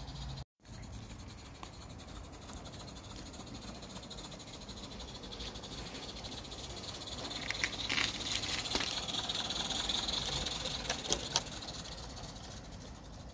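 Garden-railway model train of locomotive and coaches running along the track: a steady hiss and rattle that grows louder in the middle as the train passes close, with a few sharp clicks in the later part.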